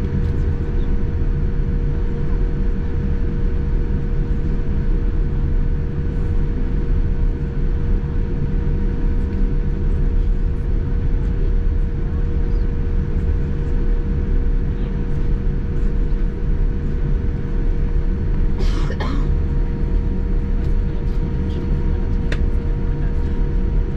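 Steady low rumble of a jet airliner with a constant mid-pitched hum over it. About three-quarters of the way through there is a brief noisy burst lasting about a second.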